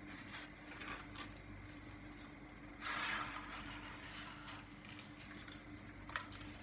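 Faint rustling and a few light clicks as dry spaghetti is pushed down into a pot, over a steady low hum; the loudest rustle comes about three seconds in.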